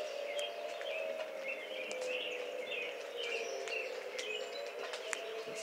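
Distant outdoor tornado warning sirens holding a long wail, a steady tone that wavers slowly in pitch. Birds chirp over it.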